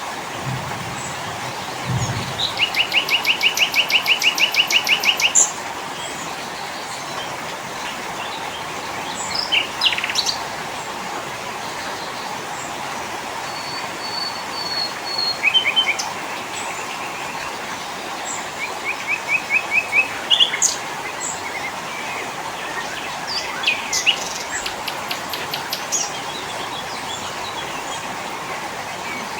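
Several small songbirds calling over a steady hiss: a fast trill of evenly spaced notes lasting about three seconds near the start, then scattered short chirps and brief trills.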